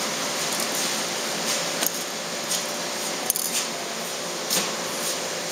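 Steady hiss with a faint steady hum, over which come a few soft clicks and rustles from fingers handling fishing line and small plastic float-rig parts, the sharpest click about three seconds in.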